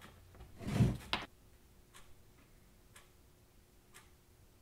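A brief rush of noise and a sharp click about a second in, then faint ticking once a second, as from a clock.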